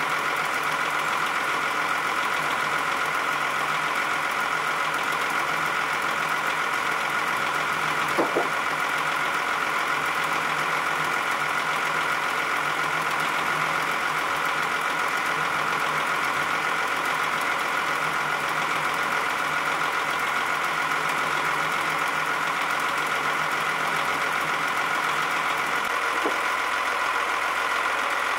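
Steady, unchanging drone of a motor running, with one short sharp sound about eight seconds in and a fainter one near the end.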